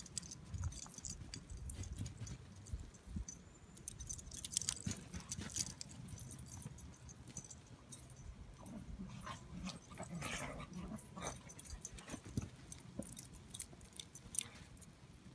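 Beagle running through shovelled snow trails: irregular crunching and crackling of paws in the snow, with a light metallic jingle like collar tags.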